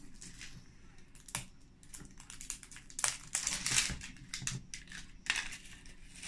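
An LOL Surprise plastic toy ball and its wrapping being handled on a wooden table: irregular clicks, taps and crinkles, loudest about three to four seconds in.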